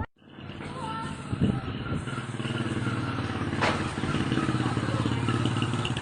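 A small engine running steadily, starting abruptly just after the start, with one brief sharp click about three and a half seconds in.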